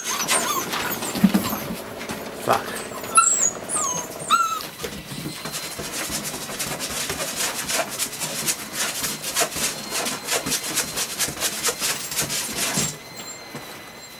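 Labrador puppies whimpering and yelping in short high calls for the first few seconds, then a long run of rapid scratching and clicking as the puppies scrabble at the wooden board of their pen. The scratching stops about a second before the end.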